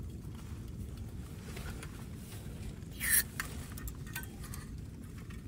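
Small clicks and rattles as a gas canister is handled and fitted into a portable camping stove, with one brief, sharp sound about three seconds in as the canister is pushed into place.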